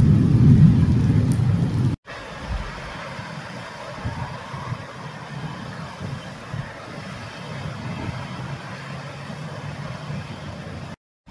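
Heavy rain pelting a flooded road while a car drives past through the water, loud for about two seconds. After a cut comes the quieter, steady rush of muddy floodwater pouring over a low wall and cascading down rocks.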